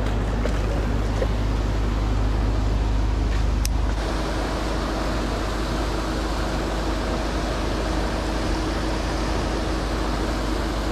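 Steady, noisy rumble of wind on the microphone and pond aerators churning water. A sharp click comes just before four seconds in, after which a faint steady hum joins.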